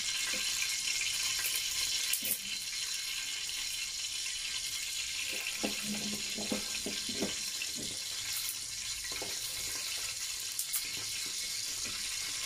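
Hot oil sizzling steadily in pans with whole spices and bay leaves, with a few light knocks scattered through.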